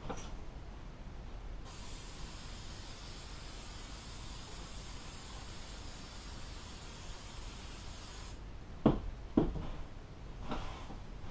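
Aerosol can of spray adhesive spraying in one long steady hiss of about six and a half seconds, which cuts off suddenly. Two sharp thumps follow about half a second apart, the loudest sounds here.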